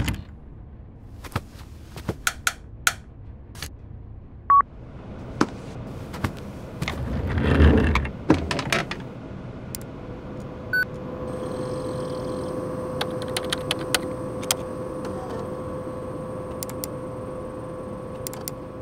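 A string of edited sound effects: scattered clicks and knocks, a short beep, a rush of noise that swells and fades around the middle, then a steady hum with a faint high whine from about two-thirds of the way in.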